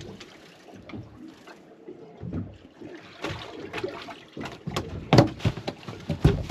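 Water sloshing and splashing in a boat's live-bait well as a hand reaches in after a live jack. There are irregular splashes and knocks, louder and more frequent near the end.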